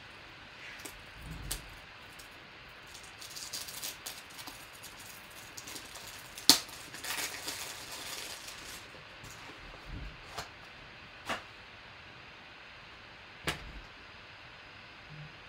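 Off-camera handling noise: scattered light clicks and taps with two short stretches of rustling, and one sharper click about six and a half seconds in.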